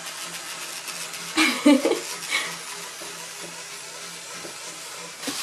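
Wind-up and battery swimming bath toys whirring in the tub water: a steady hiss with a faint low pulse about three times a second. A brief voice sounds about one and a half seconds in.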